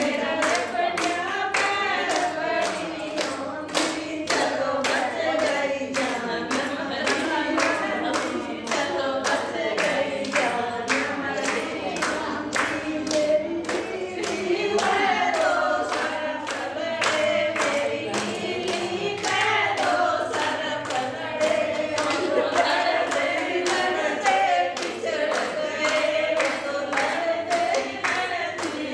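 A group of women singing a Haryanvi folk song together, with steady hand clapping keeping the beat.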